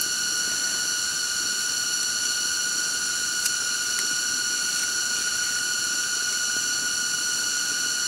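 Steady, shrill, droning chorus of forest insects, several high whining tones held without a break.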